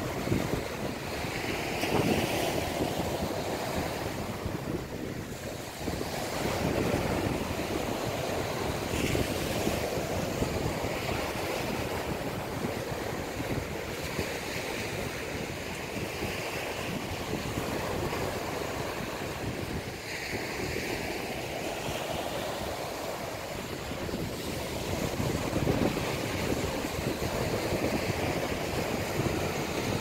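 Small ocean waves breaking and washing up a beach, a steady rush that swells and eases as each wave comes in.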